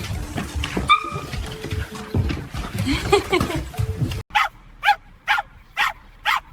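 A dog barking in a quick series of short barks, about two a second, starting about four seconds in after a sudden cut. Before that is a busy jumble of noise with a brief whine near the first second.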